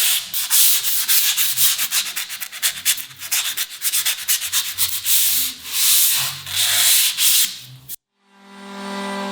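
Sandpaper rubbing on wood in quick, irregular back-and-forth strokes. About eight seconds in it cuts off abruptly, and a steady machine hum fades in.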